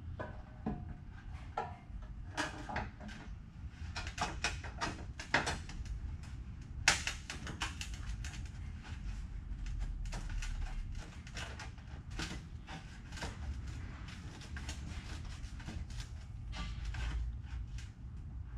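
Irregular knocks, taps and clatter of hand work on a truck's rusted rocker panel, one knock about 7 seconds in sharper than the rest, over a steady low hum.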